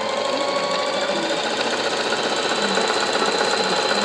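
Singer electric sewing machine running at speed, stitching a monogram with a twin needle: rapid even needle strokes under a steady high motor whine.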